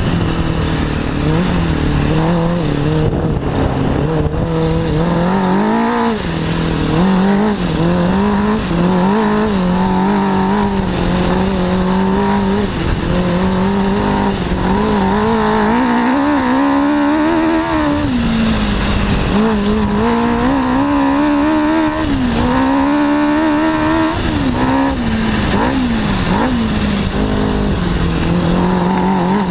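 Off-road buggy's 600 cc Suzuki four-cylinder motorcycle engine driving hard over rough ground, its revs rising and falling again and again. Wind and rumble from the rough ground sit underneath.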